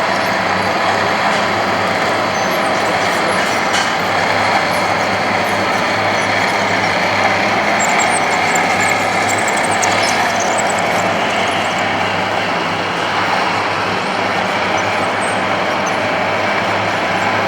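Radio-controlled scale construction machines running: a steady mechanical drone with a constant low hum, and a few faint high squeaks about halfway through.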